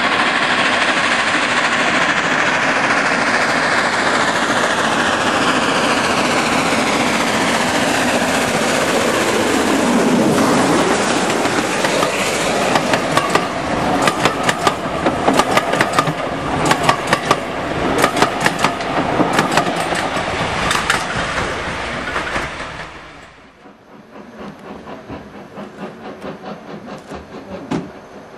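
Gresley V2 steam locomotive approaching with a dense rush of exhaust and running noise, falling in pitch as it passes close by about ten seconds in. Its teak coaches then run by with a rapid clickety-clack of wheels over the rail joints. At about 23 seconds the sound drops suddenly to a much quieter, distant train.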